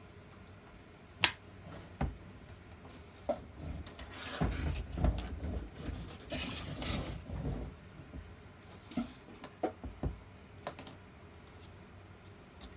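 Wooden parts of a toy bulldozer model clicking and knocking as it is handled. A sharp click comes about a second in, and there are a few seconds of rubbing and clattering in the middle as the model is turned over. A few more light clicks follow near the end.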